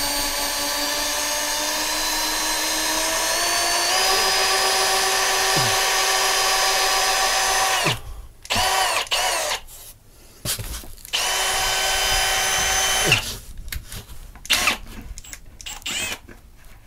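Cordless drill spinning a sharpened length of insulation hanging wire up through roof plywood and shingles to bore a small locating hole. It runs steadily for about eight seconds, its whine stepping up in pitch partway through. Then it comes in short trigger bursts, with one more steady run of about two seconds.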